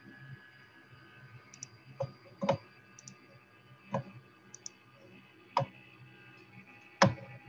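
Scattered sharp clicks and knocks, about five of them a second or more apart with the loudest near the end, and a few fainter high ticks between them, over a faint steady hum, heard through a Zoom call's microphone.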